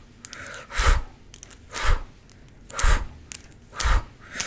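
Short puffs of breath blown straight into a close microphone, about one a second, each a brief whoosh with a low rumble.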